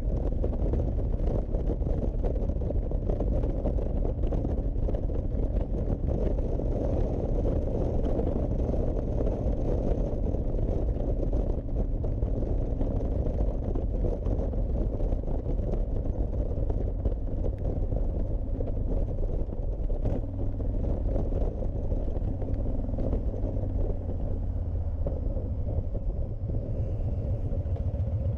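Honda VTX1300C V-twin cruiser riding along at steady speed: a continuous low engine and exhaust rumble mixed with wind rush on the microphone. The wind hiss eases slightly near the end.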